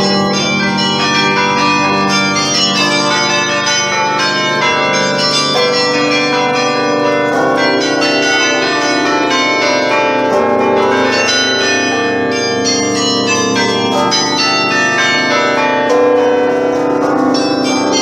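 The carillon of the Belfry of Bruges playing a tune: many tuned bells struck in quick succession, their notes ringing on and overlapping, with falling runs of notes.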